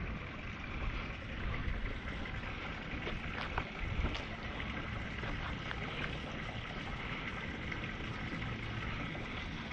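Miss Geico 36 radio-controlled racing boat running on the water, a steady noisy rush with a faint high whine, mixed with wind on the microphone.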